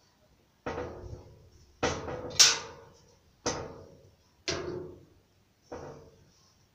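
A series of six sharp knocks or bangs, irregularly spaced about a second apart, each dying away with a short ringing tail; the third is the loudest.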